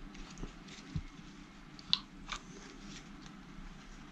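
Hands handling a bundle of electrical wires and a plastic connector: light rustling with a few sharp clicks, the loudest about two seconds in.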